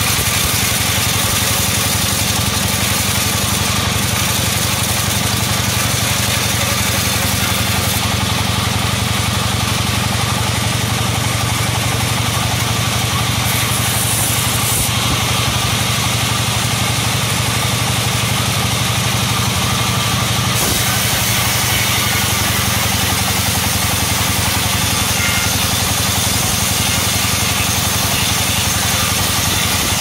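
Band sawmill running steadily, its blade sawing through an old, hard coconut log, a continuous machine drone under a hissing cutting noise. The hiss changes in strength a few times.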